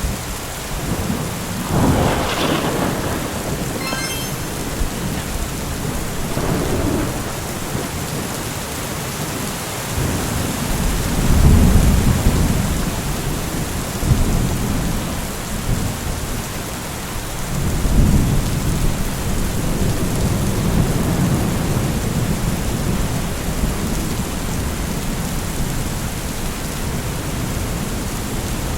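Steady rain with rolling thunder, several deep rumbles swelling up and fading: one about two seconds in, the loudest near the middle, another a little past halfway.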